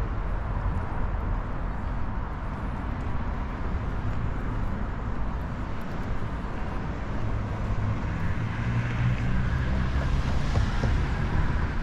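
Road traffic on a city street with wind buffeting the microphone; a vehicle grows louder in the second half as it passes close by.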